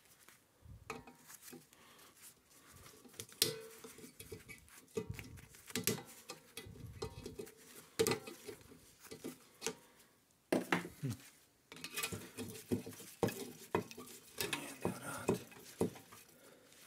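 Pliers clinking, knocking and scraping against the metal insides of an opened refrigerator compressor while working a spring loose, in irregular sharp metallic clicks with short bouts of scraping.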